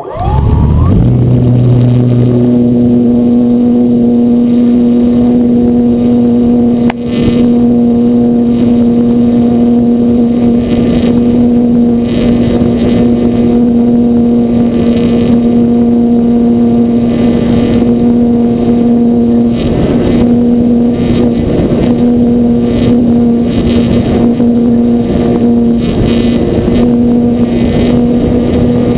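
Electric motor and propeller of an E-flite Apprentice 15e RC airplane, heard at close range from a camera mounted on the plane: it spins up at the start, then runs at a steady, loud, buzzing pitch with air noise, a brief dip about seven seconds in.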